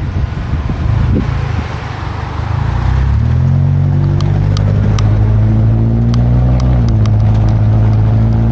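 Toyota Tacoma pickup's engine pulling away and then running steadily, heard from a camera mounted on the truck, with wind rushing over the microphone. The engine note rises about three seconds in and holds, and a few short clicks and rattles come through in the middle.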